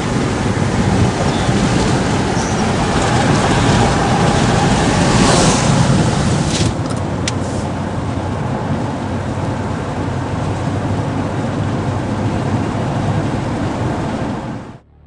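Steady road and wind noise of a moving car, a loud even rush with a low rumble, cutting off suddenly just before the end.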